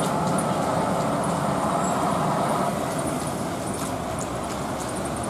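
Diesel engines of heavy trucks running, a FAW truck tractor approaching and a water tanker truck pulling away, with cars passing. The sound is a steady traffic rumble that eases slightly about two and a half seconds in.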